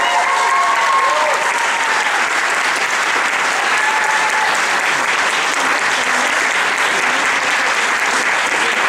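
Audience applauding steadily, with a few shouts and cheers over it in the first second or so and once more about four seconds in.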